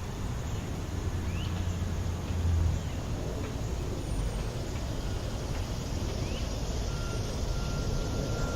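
Steady rumble of distant city road traffic, swelling briefly as a vehicle passes, with a few short rising bird chirps. Near the end a thin high beeping tone comes in, like a vehicle's reversing beeper.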